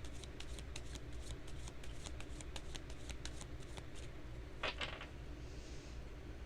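A deck of tarot cards being shuffled by hand: a quick run of light card clicks, then one louder snap of the cards a little past two-thirds of the way through.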